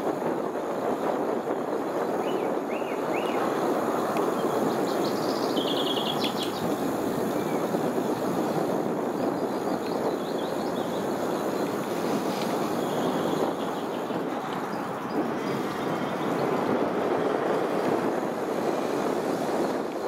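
Steady rushing noise of a bicycle being ridden along a tarmac path: tyre roll and passing air, with birds chirping now and then in the first few seconds and again about halfway through.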